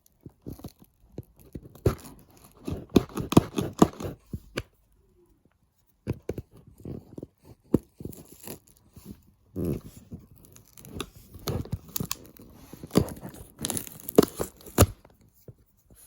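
Cardboard box and paper packing being torn open and handled: irregular tearing, crackling and rustling with small knocks, pausing briefly about a third of the way in.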